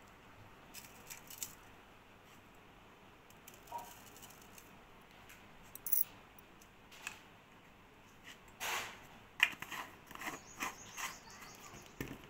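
Scattered light clicks, taps and rustles from hands handling kitchen things while fish is seasoned with salt. They come sparsely at first, then thicker and louder in the last third, with one sharp tap about three quarters of the way through.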